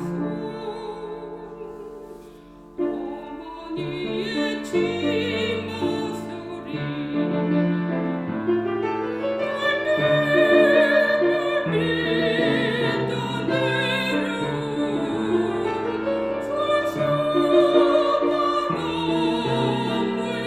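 Soprano singing a Korean art song in classical style with vibrato, accompanied by piano; the voice breaks off briefly about two and a half seconds in, then comes back in and builds.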